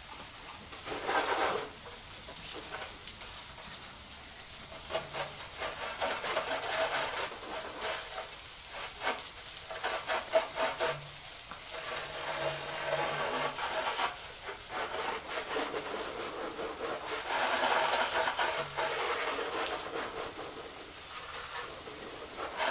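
Garden hose spraying water over a motorcycle tyre, rinsing off the soapy leak-check water around a fresh tyre plug. A steady hiss of spray that swells louder a second in and again for a couple of seconds near the end.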